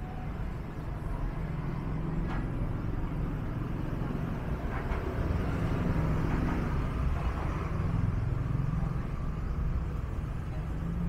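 Street traffic ambience: passing motor vehicles give a steady low rumble, with a few faint brief noises over it.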